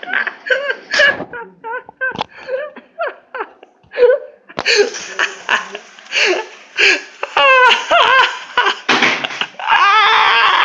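Laughing in repeated short bursts, with bits of voice between, and a loud stretch of laughter near the end.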